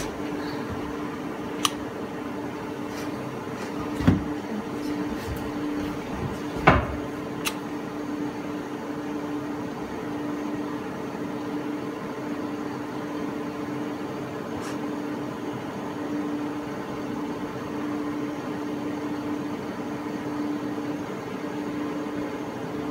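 Steady hum of equipment in a small monitoring room, with a low tone that pulses slightly. A handful of short clicks and knocks sound through it, the two loudest about four and seven seconds in.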